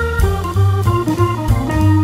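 Jazzy instrumental background music led by an organ, with bass and drums.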